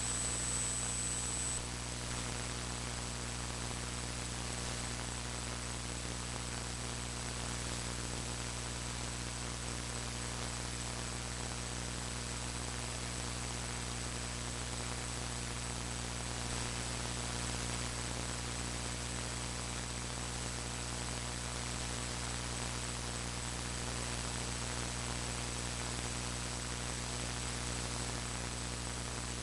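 Steady electrical hum and static hiss from a faulty audio recording, with a thin high whine that is louder for the first second or so.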